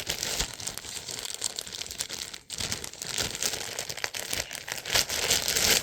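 Packaging crinkling as a shirt is unwrapped by hand, continuous apart from a short pause about two and a half seconds in, and loudest near the end.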